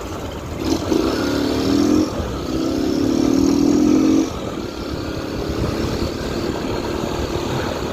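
Yamaha XTZ single-cylinder motorcycle engine, run without an air filter and with a washer in the exhaust, pulling hard twice with a short dip between the pulls about two seconds in, then settling to a steady cruise.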